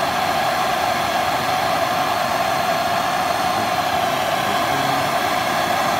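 Propane torch burning steadily, its flame giving a steady, even rushing hiss.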